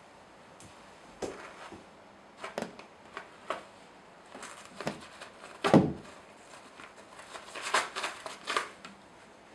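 A cat clawing and biting a roll of toilet paper: scattered bursts of paper rustling and scratching, with one louder thump a little past halfway.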